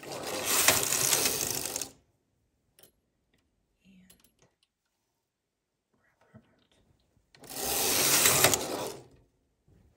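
Singer 328 Memo-matic knitting machine carriage pushed across the needle bed twice, knitting a row each time. Each pass is a loud mechanical rush of about two seconds, the first right at the start and the second near the end, with a few faint clicks in the quiet between.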